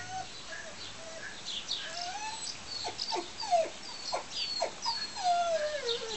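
A dog whining: a string of high, thin whimpers that slide down in pitch, several short steep ones in the middle and a longer falling cry near the end.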